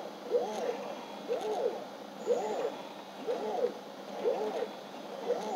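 A rhythmic squeak: a short pitched sound that rises and falls, repeating evenly about once a second.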